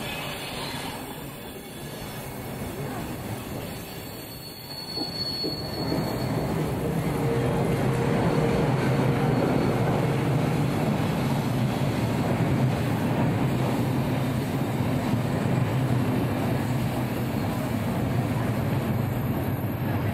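Electric-hauled passenger train pulling slowly into the platform. The sound grows louder about six seconds in, as the locomotive draws near with a steady hum. After that the coaches roll past with their wheels running on the rails.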